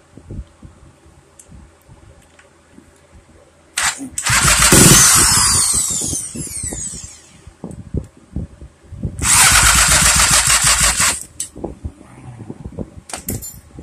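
Small two-stroke bicycle engine kit, newly getting spark, firing up twice: a run of about three seconds that revs and then slows and dies, and a shorter run of about two seconds a little later. Scattered clicks and knocks come in between.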